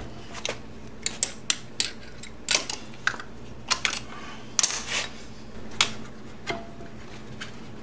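Irregular metallic clicks and clinks of a hand tool and bolts as the Allen bolts holding the rear brake caliper are worked loose, about a dozen sharp clinks at uneven intervals. A faint steady low hum sits under them.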